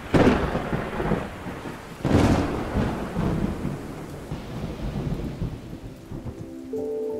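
Two claps of thunder about two seconds apart, each dying away, over steady rain. Soft held music notes come in near the end.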